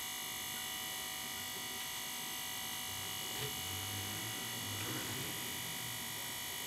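A steady electrical hum with a high whine running throughout, and a faint low rumble for a couple of seconds around the middle.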